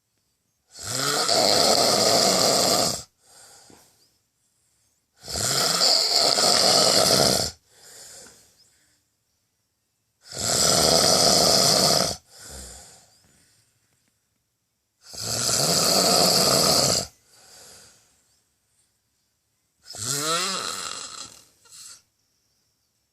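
A person snoring loudly in a slow, regular rhythm: five long snores about five seconds apart, each followed by a shorter, quieter breath. The last snore is shorter and wavers in pitch.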